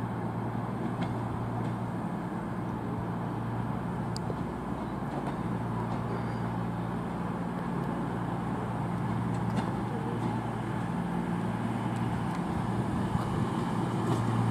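CrossCountry Voyager diesel multiple unit's underfloor diesel engines running with a steady drone as the train moves slowly forward, growing louder towards the end as it draws nearer.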